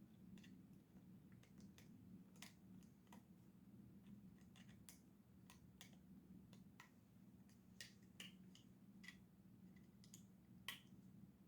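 Faint, scattered small clicks and taps of metal tools and parts being handled as a Microtech MSI folding knife is taken apart, over a low steady hum. The sharpest clicks come near the end.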